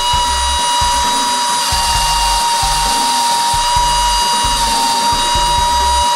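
The small vacuum fan motor inside an Air Hogs Zero Gravity TRON Light Cycle RC toy runs with a loud, steady high-pitched whine, the suction that holds the toy to the wall. A low hum cuts in and out several times under it.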